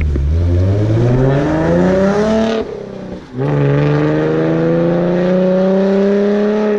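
Ford Mustang V6 with a Roush axle-back exhaust accelerating hard. Its note rises steadily, dips briefly for an upshift about two and a half seconds in, then climbs again more slowly in the next gear.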